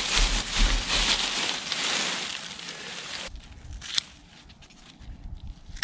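Dry, dead turmeric leaves and stalks rustling and crackling as the clump is pulled up out of the soil. About three seconds in it cuts off abruptly to quieter soft rustling of hands in the soil, with a couple of sharp clicks.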